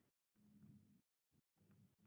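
Near silence: faint room tone with brief digital dropouts.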